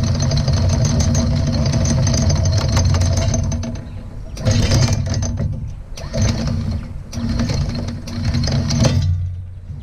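Lewmar electric anchor windlass running, pulling galvanized anchor chain over its gypsy into the chain locker. It makes one long run of about three and a half seconds, then three shorter bursts, and stops about a second before the end.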